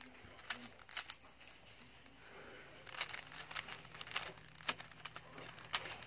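Transparent plastic Rubik's cube being twisted by hand, its layers giving an irregular run of small plastic clicks as the faces turn.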